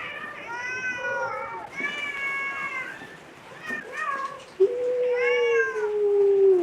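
A domestic cat meowing repeatedly: a few short meows, each rising and falling in pitch, then one long drawn-out meow lasting about two seconds near the end.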